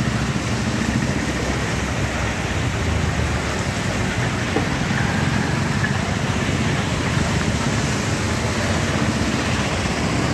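Traffic wading through a flooded street: auto-rickshaw and motorcycle engines running and tyres pushing through water, under a steady hiss.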